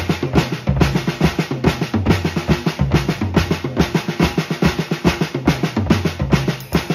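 Snare drum played in Swiss army triplets, a repeating flam-tap-tap pattern of quick, even strokes, with low drum hits underneath.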